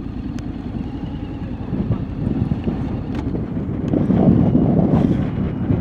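Honda X-ADV 750's parallel-twin engine running at low speed as the bike rides over rough, muddy ground, with wind noise on the microphone and a few small knocks. The rumble grows louder about four seconds in.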